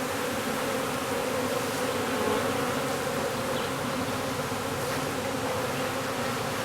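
A large swarm of honeybees buzzing in a steady, even drone: a freshly captured swarm massed at a nuc box and moving into it.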